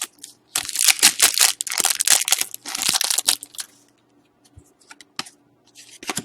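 Plastic trading-card wrapper or sleeve being crinkled and torn by hand for about three seconds, then a few light taps and clicks of cards being handled.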